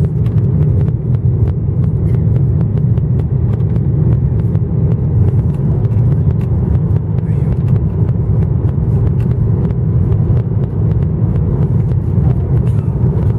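Cabin noise inside a Boeing 737-900ER descending on final approach: a steady low rumble of its CFM56 jet engines and airflow past the fuselage, heard at a window seat over the wing. Faint scattered ticks run through it.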